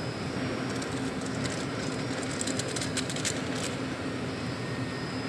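Aluminium foil crinkling and crackling in gloved hands as powdery ash is tipped out of it, a run of sharp crackles from about a second in to nearly four seconds in. Under it a steady low machine hum.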